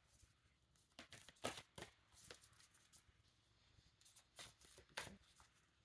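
Faint shuffling of a deck of oracle cards: soft riffling with a handful of separate sharp card snaps and taps.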